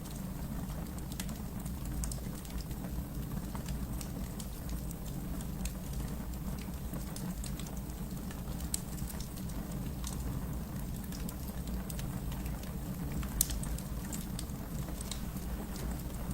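Wood fire burning in a fireplace: a steady low rumble of flames with scattered crackles and pops, one sharper pop about thirteen seconds in.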